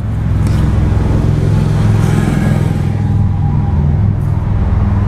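An engine running steadily close by, a loud, even low hum that holds without change.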